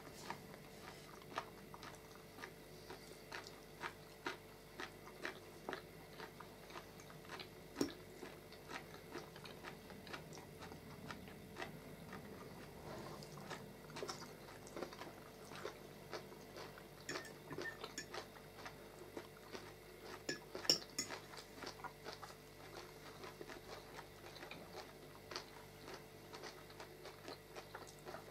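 People eating: soft chewing with many irregular light clicks of forks and spoons against plates and bowls, one sharper clink about two-thirds of the way through, over a faint steady hum.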